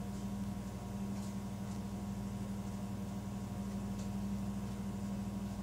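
A steady low electrical hum with an even pitch and nothing else.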